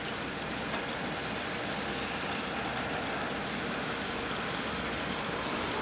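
Steady hiss of wet, slushy snow falling, with scattered faint ticks of flakes landing.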